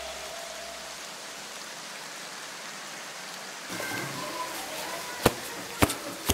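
Faint, steady hiss, then from a bit past halfway the live sound of things being handled on a wooden workbench, with three sharp knocks near the end as objects are picked up and set down.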